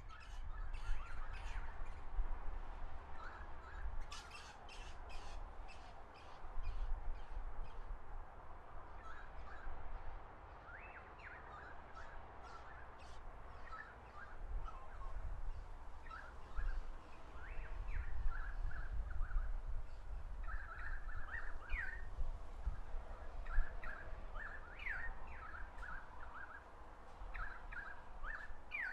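Wild birds chirping: many short, quick notes in loose clusters, busier in the second half, with a run of fast high ticking notes in the first several seconds and a low rumble underneath.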